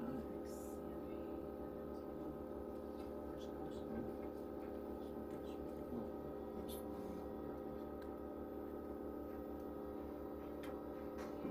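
Steady hum of a machine running in the room, made of several held tones, with a few faint short rustles and clicks from handling paper.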